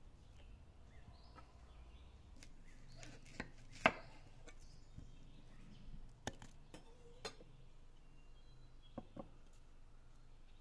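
Knife cutting an onion on a stone slab: about six separate sharp knocks of the blade on the stone, the loudest about four seconds in, among soft rustling of the onion as it is handled and peeled.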